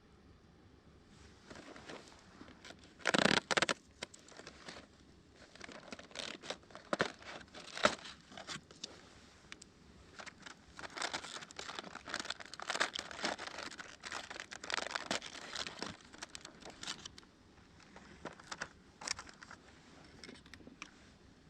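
Irregular crinkling and rustling with scattered sharp clicks, loudest in a burst about three seconds in.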